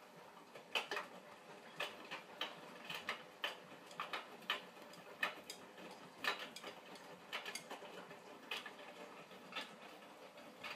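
Hotpoint Smart 9kg washing machine tumbling a wash, its drum turning wet laundry through the water, with irregular sharp clicks and knocks about once or twice a second.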